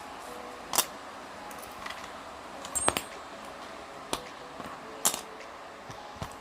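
Small metal parts and hand tools clicking and clinking as they are handled, with five separate sharp strikes spread about a second apart, one of them briefly ringing.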